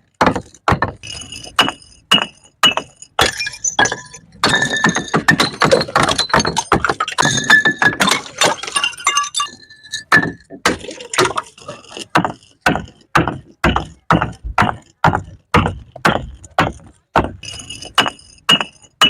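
Glass bottles thrown down stairs, knocking on the steps and shattering. A run of hard knocks gives way, about four seconds in, to several seconds of dense breaking glass with ringing clinks, then evenly spaced knocks about twice a second.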